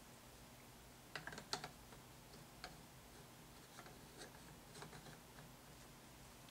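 Faint clicks and taps of hard statue parts being handled: a quick cluster of sharper clicks about a second in, then a few scattered softer ticks.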